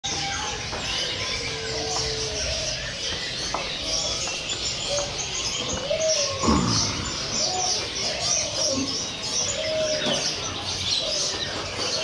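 Chorus of many caged songbirds chirping and singing over one another, with dense rapid high chirps and scattered lower whistled notes. About halfway through, a single louder sound sweeps steeply down in pitch.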